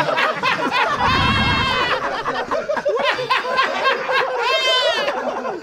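A group of men laughing hard and calling out over one another, with high-pitched shrieks of laughter about a second in and again near the end.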